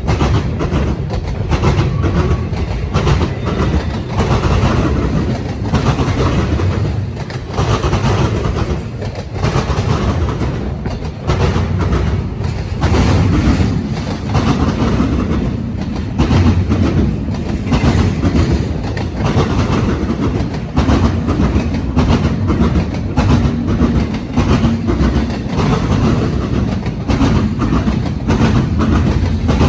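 Freight train cars rolling past, a continuous low rumble with steel wheels clacking rapidly and irregularly over rail joints and crossings.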